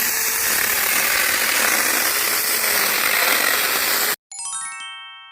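Mini electric chainsaw cutting wood: a loud, steady mechanical noise that cuts off sharply about four seconds in. It is followed by a quick run of bell-like chime notes that ring out and fade.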